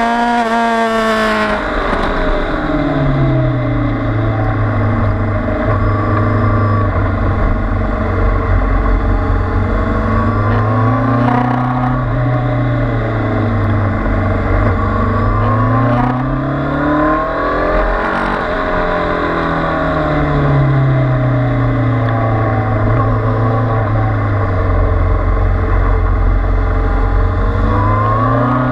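Kawasaki Z800's inline-four engine heard from on board while lapping a track. The revs climb and fall again and again as the bike accelerates out of corners and slows into them, with a sharp drop just at the start.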